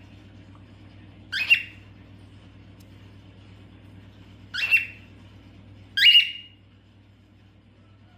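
Cockatiel giving three loud, shrill contact calls a few seconds apart, each sweeping up in pitch, over a steady low hum.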